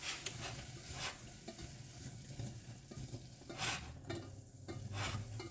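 Diced onions sautéing in melted butter in a pan, a soft steady sizzle, with a few short clicks or scrapes from a utensil about three and a half and five seconds in.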